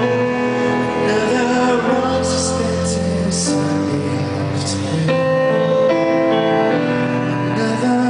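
Male pop singer singing live into a microphone over instrumental backing, amplified through a PA, in long held notes.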